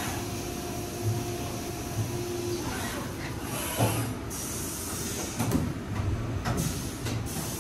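Haas VF4 CNC vertical mill machining a part under flood coolant: a steady hiss of coolant spray over the running spindle and cutting noise. A faint steady cutting tone stops about a third of the way in, and a few louder knocks come in the second half.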